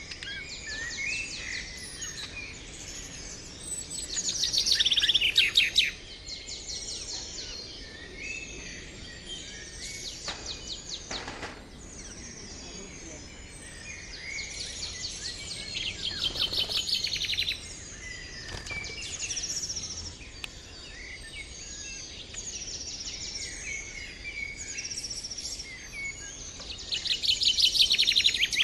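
A flock of budgerigars chattering and chirping, with three louder spells of rapid repeated chirps.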